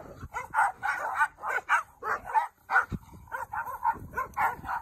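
Dogs barking and yipping in rough play, a quick string of short barks, two or three a second.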